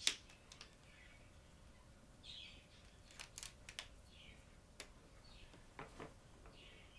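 Felt-tip marker pens being handled: scattered light clicks and taps of the pens and caps, with a few short, faint squeaks. Near the end a marker begins stroking on the chart paper.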